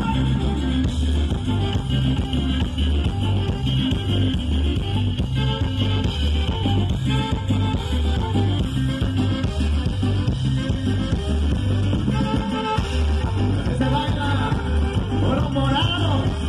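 Live band playing an upbeat huapango-style dance tune, with the bass switching between two notes in a steady beat under drums and melody instruments.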